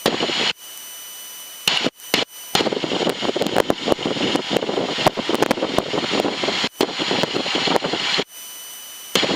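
Crackling static on the small plane's headset intercom audio, cutting in and out abruptly several times, with a quieter steady hiss in the gaps.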